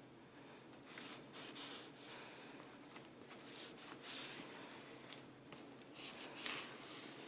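Knife scratching and slicing into a cardboard box, in short irregular scraping strokes.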